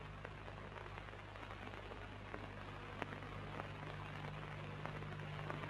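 Faint hiss and crackle of an old film soundtrack, with a steady low hum and a few scattered clicks.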